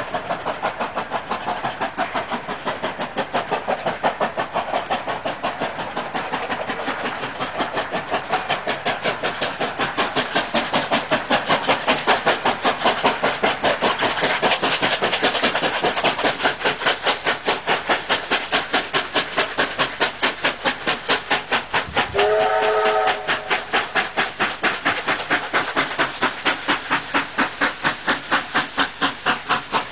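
New South Wales 36 class 3642 and 59 class 5910 steam locomotives double-heading up a steep grade, working hard with a fast, even beat of exhaust. About two-thirds of the way through, a steam whistle sounds one short blast of about a second.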